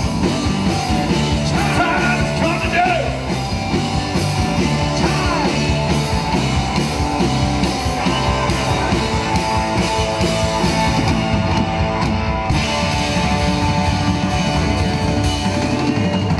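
Live rock band playing a passage with no words: electric guitars, bass guitar and drum kit, amplified through a PA, with a steady beat.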